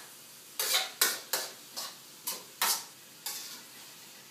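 A metal utensil scraping and knocking against a stainless-steel wok as chicken livers are stirred over a gas flame, about seven sharp strokes in quick succession, with a faint sizzle of frying underneath.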